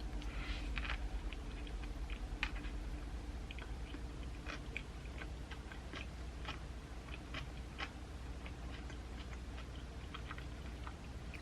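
A person chewing food with the mouth close to the microphone, a quick run of soft wet smacks and clicks at the start and then chewing clicks every fraction of a second. A faint steady low hum runs underneath.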